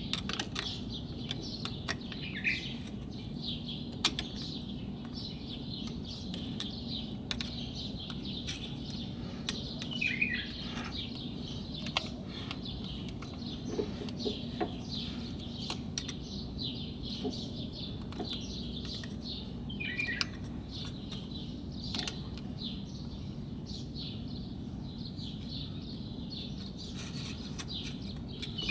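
Small birds chirping continuously, with a falling call a few times. Now and then a light click of a metal screwdriver against the brake caliper as a piston dust seal is worked into place.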